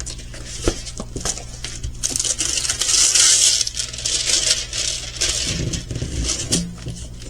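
Plastic packaging of a diamond painting kit crinkling and rustling as it is handled, with small clicks and taps. The rustle is loudest between about two and four seconds in.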